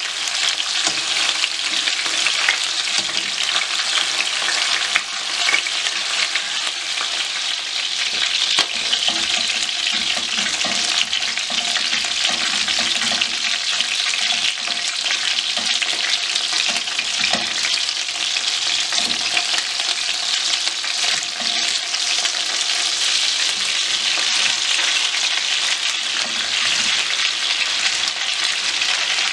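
Chicken pieces frying in hot oil in a frying pan: a steady sizzle and crackle, with the pieces being stirred and turned with tongs.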